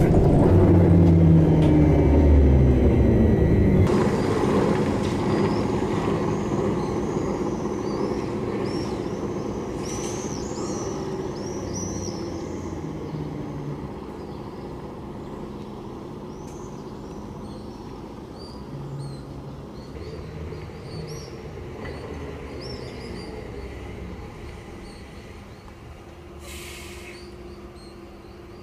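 SVARZ-MAZ-6235.00 trolleybus with a falling whine over the first few seconds that cuts off sharply. Its sound then fades away steadily while small birds chirp, high and quick. A short hiss comes near the end.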